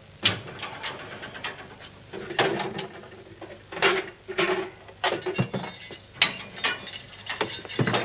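A key grinding and clicking in an old door lock, with a run of metallic clicks, rattles and knocks as the last of seven locks on a cell door is worked open.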